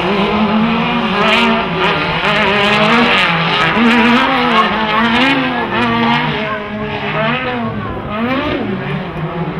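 Several off-road racing buggy engines revving hard, their pitch climbing and dropping again and again as they accelerate and lift off on the dirt track, the different engines overlapping.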